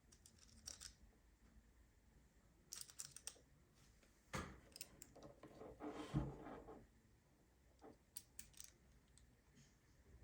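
Faint clicks and snaps of stainless-steel fish lip grippers being handled, in small groups, with a longer stretch of handling noise from about four to seven seconds in.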